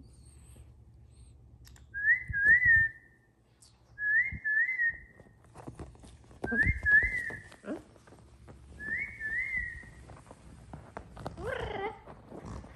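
Amazon parrot whistling four times, a couple of seconds apart, each a quick pair of rising notes. Near the end there is a short wavering call, with scattered light knocks throughout.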